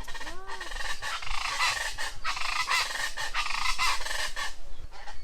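A dense chorus of many birds calling and chattering at once, with a few short rising-and-falling notes near the start.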